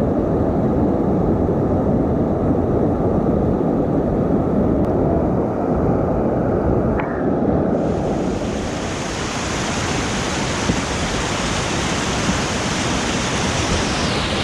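Whitewater rapids rushing close by, a steady wash of water noise. About halfway through, the sound becomes brighter and hissier.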